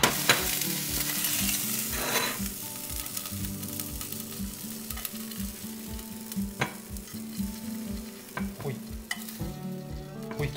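Smoked sausages sizzling in a hot frying pan as they are lifted out with tongs onto a plate. The sizzle is loudest in the first couple of seconds. A sharp clink comes right at the start, and light clicks of the tongs against pan and plate follow.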